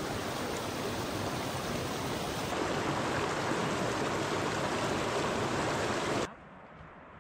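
Mountain creek rushing over rocks, a steady dense rush of water that cuts off suddenly about six seconds in, leaving only a faint quiet background.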